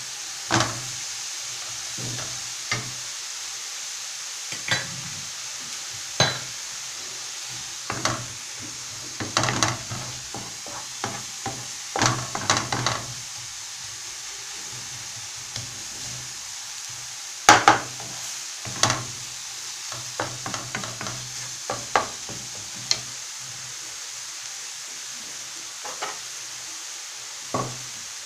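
Chopped onion, garlic and tomato sizzling steadily in oil in a non-stick frying pan while a wooden spoon stirs them, knocking and scraping against the pan at irregular moments.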